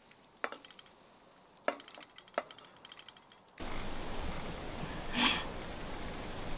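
A few light clinks and taps, sharp and separate. About halfway a steady hiss of background noise comes in suddenly, with one brief louder rush of noise about a second and a half later.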